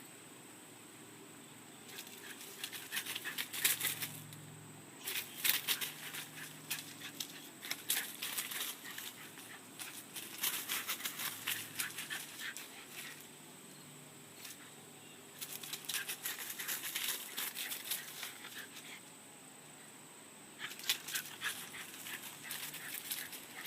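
A dog at play: repeated flurries of rustling and clicking, each lasting a few seconds with quieter pauses between.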